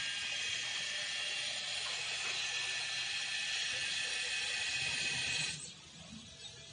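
High-pitched buzzing chorus of insects, steady and unbroken, that cuts off suddenly about five and a half seconds in.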